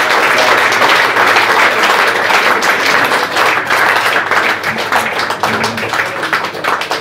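Audience applauding at the end of a song: a dense patter of many hands clapping that thins out and grows quieter toward the end.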